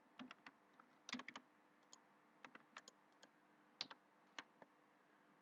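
Faint clicking and tapping of a computer keyboard and mouse: short sharp clicks, some in quick little runs, scattered irregularly.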